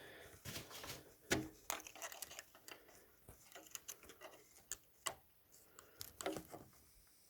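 Irregular light clicks and taps of small repair tools and tiny phone parts such as screws being handled, with one sharper click about a second and a half in.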